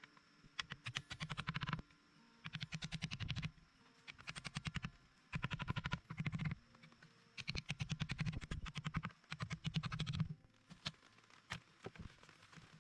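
Rhythmic rasping strokes, about six of them, each about a second long and made of a fast run of gritty clicks, with short pauses between.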